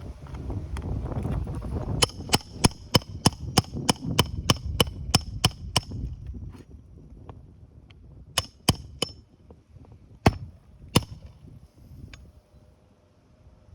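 Hammer blows with a metallic ring, about three a second for around four seconds, then a few slower, spaced strikes, during work on a roof shingle repair. Wind buffets the microphone for the first couple of seconds.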